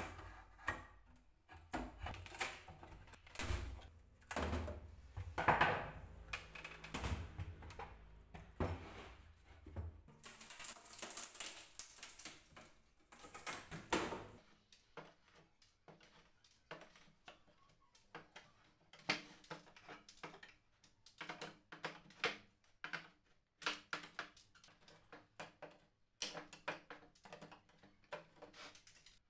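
Hand tools dismantling an old wooden suitcase: knocks and scraping as a flat-blade tool pries metal corner fittings off the wood, then a long run of sharp clicks and creaks as end-cutting pincers grip and pull small nails out of the box's rim.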